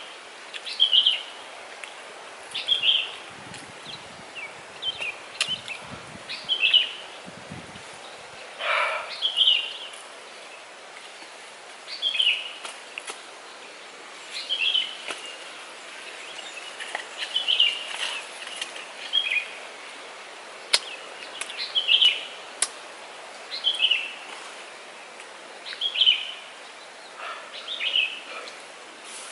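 A bird calling over and over: short high chirps every second or two, over a steady hiss of outdoor background noise.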